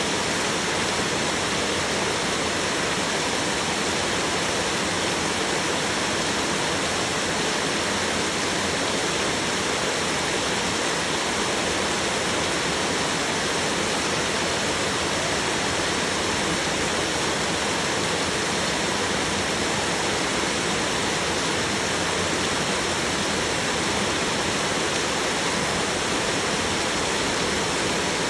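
Heavy rain falling on a roof, a dense, steady hiss that does not let up.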